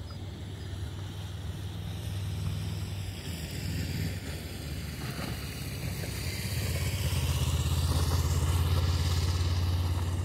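Distant Boeing 737's jet engines at takeoff thrust during its takeoff roll: a broad roar that builds, loudest from about seven seconds in, with a slowly sweeping hiss in the highs as the aircraft moves.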